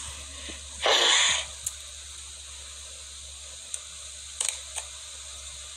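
A short burst of hissing noise about a second in, then a few faint clicks over a low steady hum.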